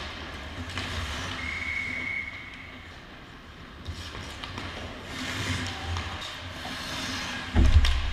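Ice hockey game sounds picked up on the net: skates scraping and sticks on the ice over the low rumble of the arena, with a steady high tone lasting about a second early on. Near the end comes a sharp, loud thump as play crashes in around the net.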